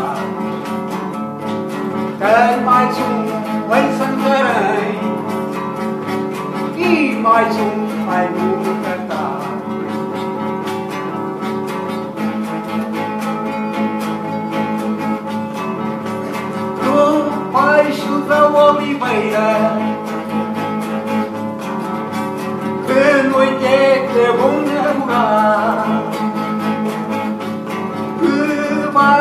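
A man singing to his own playing on a nylon-string classical guitar, the guitar going on steadily with sung phrases coming in and out over it.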